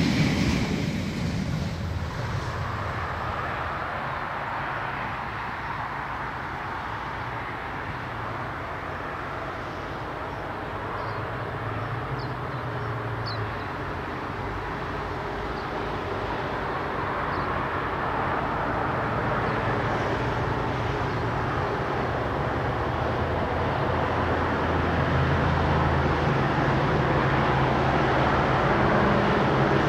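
Diesel-electric locomotive engine working hard under power. A loud passage dies away over the first two seconds, then a steady engine drone whose note shifts a few times and which grows louder through the second half as it comes nearer.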